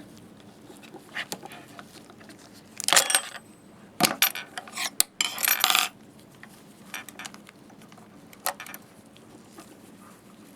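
Metal hand tools clinking and scraping against a welded metal chinrest bracket as its lip is pried wider. A cluster of sharp clanks comes about three seconds in, and a busier run of clanks and scrapes follows from about four to six seconds in, with a few lighter taps around it.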